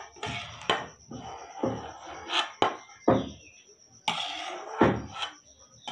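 Steel ladle scraping and knocking against a steel kadhai and plate while cooked Maggi noodles are scooped out: about eight sharp clanks at uneven spacing, with scraping between them.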